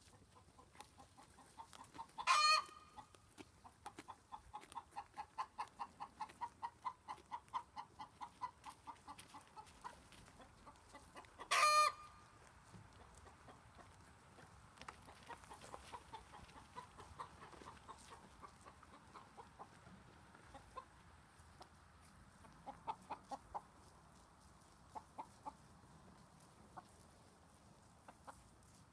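Hen clucking: two loud, short squawks about nine seconds apart, with a steady run of clucks at about three a second between them, then scattered quieter clucks.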